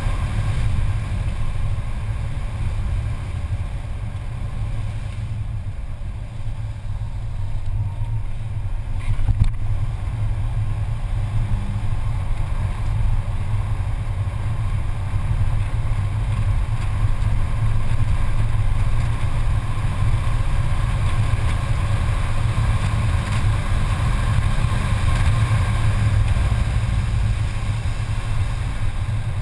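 Mercedes-Benz C280's engine running hard at track speed, heard from inside the cabin with steady tyre and wind noise. It eases a little for a few seconds about five seconds in, and there is one short sharp knock about nine seconds in.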